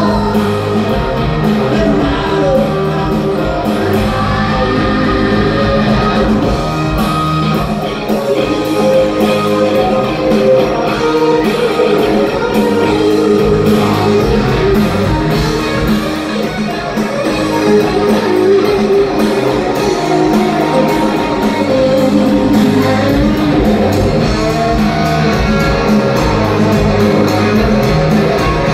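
Live rock band playing loudly, with electric guitars over a steady drum beat.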